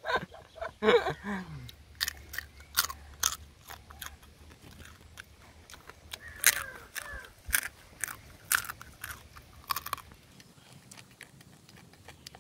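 Cooked crab shells and legs cracking and crunching between the teeth as they are bitten and chewed: a string of sharp, irregularly spaced crunches that thin out near the end.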